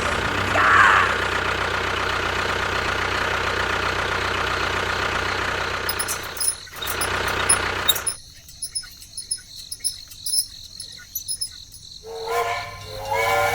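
A small engine or motor runs steadily, falters about six seconds in, then stops about eight seconds in, leaving scattered light clicks. A high, bending voice-like sound starts near the end.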